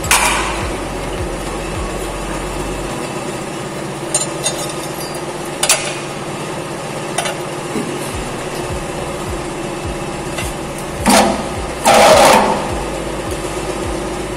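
A steady electric motor hum from a workshop machine, with a few light metal knocks, then a louder clatter of handling noise about eleven to twelve and a half seconds in.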